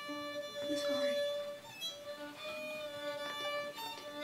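Background violin music: slow, long-held bowed notes, one higher note sustained over a lower line that changes a few times.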